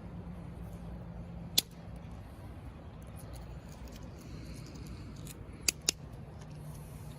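Small stones clicking together as creek gravel and chert pieces are handled: one sharp click about a second and a half in, then two in quick succession near the end, over a steady low hum.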